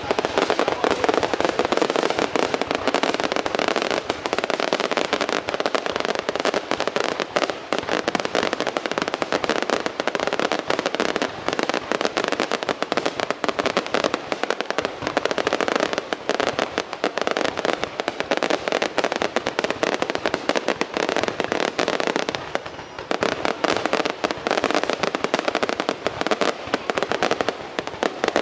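Fireworks going off in a dense, unbroken run of rapid bangs and crackles, easing briefly a little after two-thirds through.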